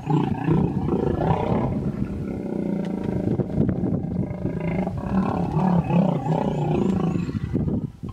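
Hippopotamus giving a long, deep, rough call of several seconds that sags briefly partway through and stops abruptly near the end. It is a defensive vocalization, a female hippo warning off an approaching hippo to protect her young.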